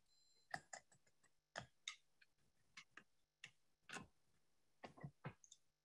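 Near silence broken by about a dozen faint, irregular clicks and taps.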